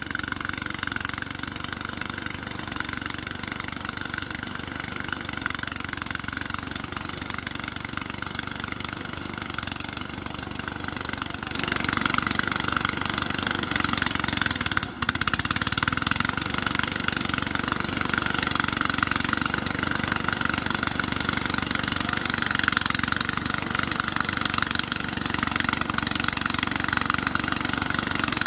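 An engine running steadily, growing louder about a third of the way in, with a brief dip shortly after.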